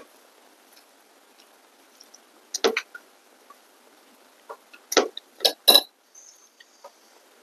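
Close-miked eating sounds: a few short, loud chewing and mouth sounds, one cluster about two and a half seconds in and several more around five seconds in, over a low, quiet background.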